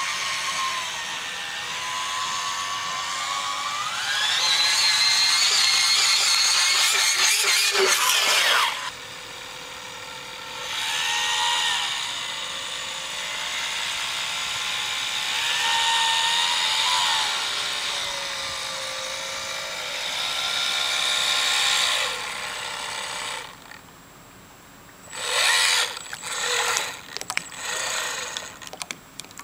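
Electric outboard motor of an RC model speedboat whining, its pitch climbing steeply about four seconds in and cutting off abruptly near nine seconds. Three more bursts of throttle follow, each whine rising and falling, then a few short blips near the end.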